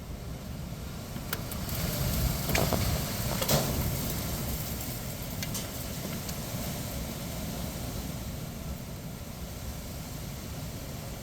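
Strong wind gusting and buffeting the microphone with a low rumble, swelling to a peak about two to four seconds in before easing, with a few sharp clicks and cracks mixed in.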